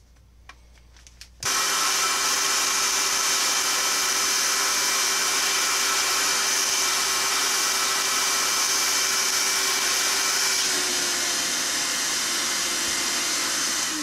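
Vacuum cleaner sucking the air out of a vacuum storage bag through its valve, starting about a second and a half in and running steadily with a hum and a thin whistle. Around eleven seconds in the whistle stops and the hum dips slightly, and near the end it starts to wind down.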